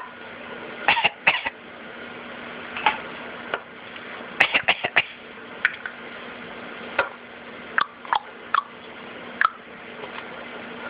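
Short, sharp coughs, a dozen or more spaced irregularly, with a quick run of four about halfway through.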